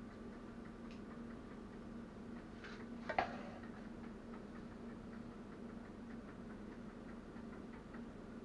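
Quiet stovetop cooking: a utensil clacks against a frying pan about three seconds in, with faint scattered ticks over a steady low hum.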